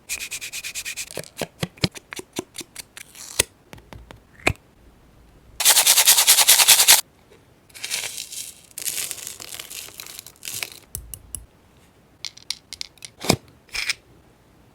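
Paper-craft handling sounds: a run of sharp taps and crinkles of paper and stickers, with a loud rasping burst a little over a second long about six seconds in, then more crinkling and a few taps.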